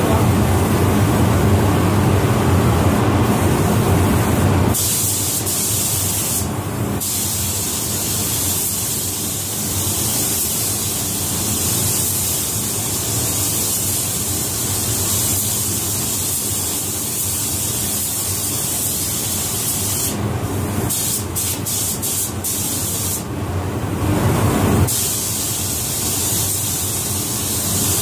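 A paint spray gun hisses steadily as clearcoat is sprayed onto a truck in long passes. The hiss breaks off briefly when the trigger is let go between passes: once about seven seconds in, then several short breaks after about twenty seconds. A heavier low rumble runs under the first five seconds.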